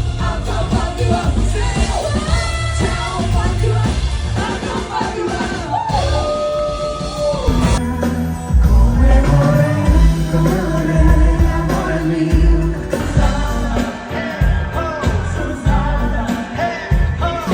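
Live pop-rock cover band playing with a lead singer. A long sung note is held about six seconds in, and the bass and drums get heavier about eight seconds in.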